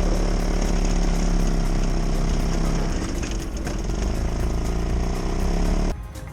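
1987 Toyota pickup's engine running steadily, with a shift in its note about halfway through, then cutting off abruptly near the end.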